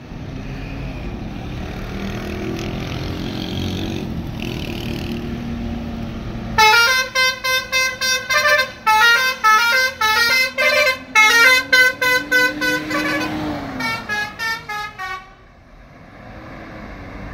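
Bus engine and traffic noise, then, about six seconds in, a basuri (telolet) multi-tone bus horn plays a fast run of short, loud melodic notes for about nine seconds before stopping near the end.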